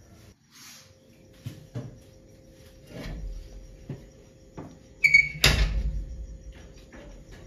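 A few soft knocks of household handling, then a cooking pot with a metal lid is set down on a wooden table about five seconds in: a ringing metallic clink of the lid and a thud.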